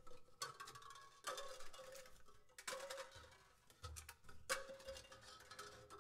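Prepared grand piano, with bolts and ping-pong balls on its strings, played in sparse separate strokes. There are four knocking attacks, each ringing on for a second or so before dying away.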